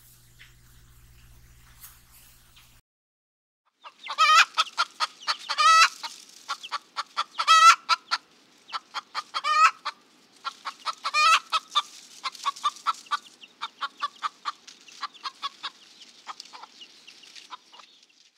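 Domestic hens clucking: a run of rapid short clucks with louder, drawn-out squawking calls every couple of seconds, starting about four seconds in and thinning out near the end.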